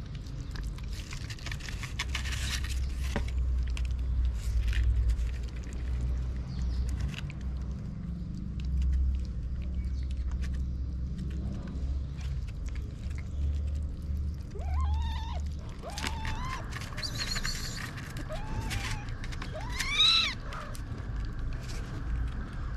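Kitten mewing: a run of short, high, rising-and-falling meows in the second half, the loudest near the end, over a low steady rumble.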